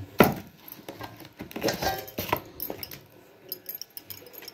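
A sharp knock about a quarter second in, then light scattered taps and rubbing as a dough ball is handled on a wooden rolling board and dusted with dry flour by hand.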